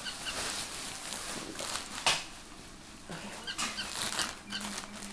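Packaging rustling and crinkling as a parcel is worked open by hand, with one sharp tear or snap about two seconds in.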